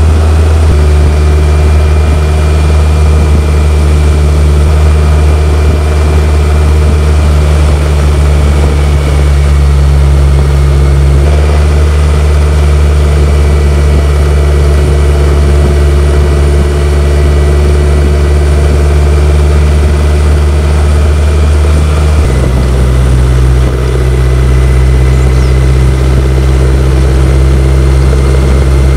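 BMW K1100LT motorcycle's inline-four engine running at steady revs while riding. The engine note jumps abruptly to a different pitch about a third of the way in and again about three-quarters of the way through.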